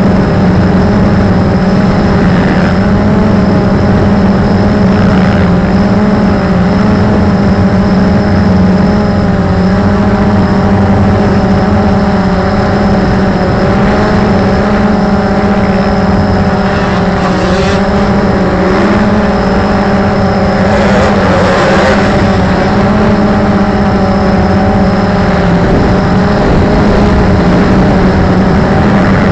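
Electric motors and propellers of a camera drone in flight, a loud steady hum with several overtones that waver only slightly.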